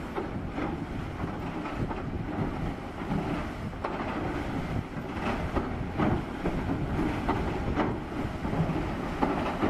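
Heavy machinery running steadily, with irregular knocks and clanks.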